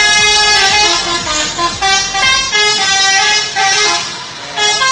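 A bus's multi-tone 'telolet' horn playing a quick stepped melody of toots, its pitch jumping up and down every fraction of a second. It dips briefly near the end, then starts again.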